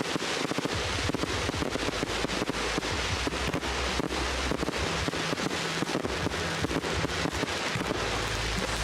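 Fireworks display going off, a dense run of rapid cracks and bangs with crackle in between.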